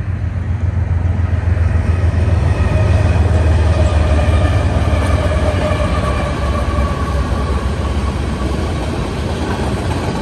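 BNSF freight train passing close by: a deep, steady rumble from the diesel locomotives, loudest a few seconds in, with a steady tone over it, then the covered hopper cars rolling past on the rails.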